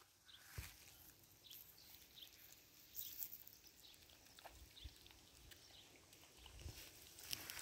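Faint sound of two goat kids eating bread from a bucket: scattered small clicks of chewing and a few soft knocks.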